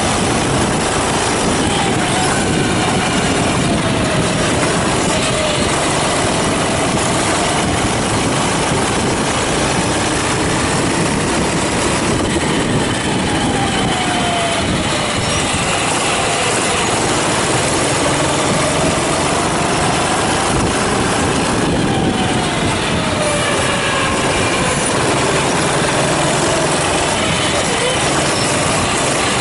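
Kart engine running hard, its pitch climbing slowly and then dropping away several times over as the kart accelerates and slows around the track, over a steady noisy drone.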